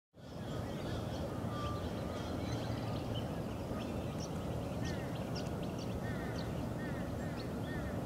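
Wetland bird calls: many short chirps and calls from several birds over a steady low rumble, with a quick repeated series of calls from about halfway through.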